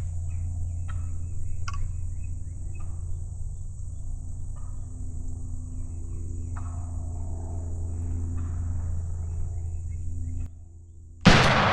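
Wild turkey tom gobbling repeatedly, about six times, then a single loud shotgun blast near the end.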